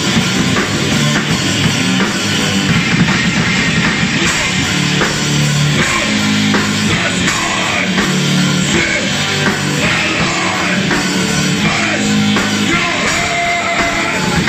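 A heavy metal band playing live with electric guitars, bass guitar and drum kit, loud and continuous.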